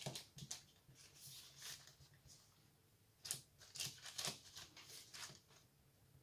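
Faint rustling and scraping of baking parchment under hands pressing and smoothing raw puff-pastry turnovers: a handful of short, soft strokes, the clearest about three to four and a half seconds in.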